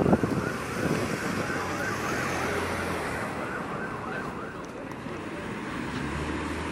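An emergency siren warbling rapidly up and down for about two seconds, over the low, steady running of a vehicle engine. The engine hum grows louder near the end as the ambulance draws near.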